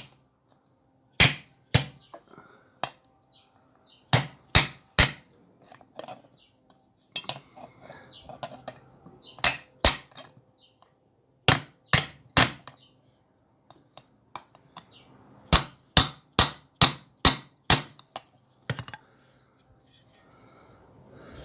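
A small hammer striking the bent steel blade of a garden spade to straighten it: sharp metallic blows in short runs of two to six, with pauses of a few seconds between runs and a single last blow near the end.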